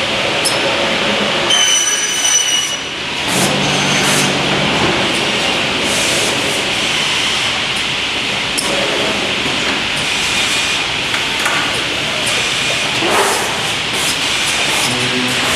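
PVC window-profile processing machine running: a steady loud mechanical hiss and clatter, with a brief high squeal about two seconds in and a short low hum a little later.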